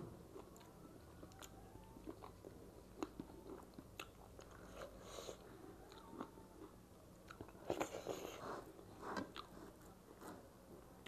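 A person chewing and eating dhido by hand: faint, wet mouth sounds with scattered small clicks, a little busier about eight seconds in.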